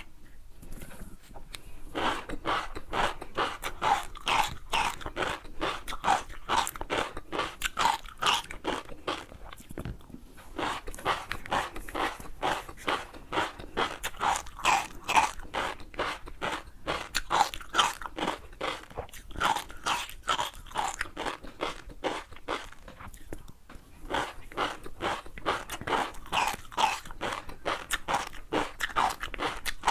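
Crunchy food being bitten and chewed close to the microphone, with crisp crunches in a steady chewing rhythm and brief pauses about ten seconds in and again a little before halfway through the second half.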